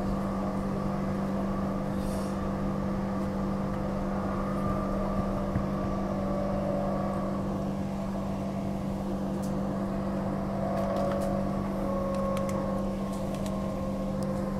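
Inside a Transperth A-series electric multiple unit running between stations: a steady hum with a constant low tone and fainter higher tones over a rumble.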